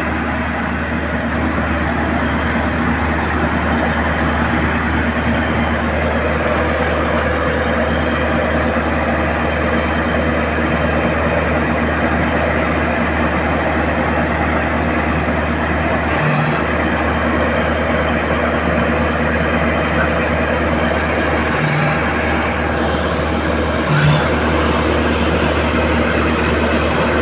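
Heavy crane engine running steadily, a continuous low drone with a few brief changes in pitch.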